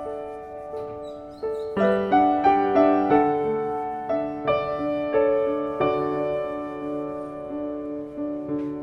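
Background piano music: a slow, gentle melody of notes struck one after another, with a fuller run of notes about two seconds in.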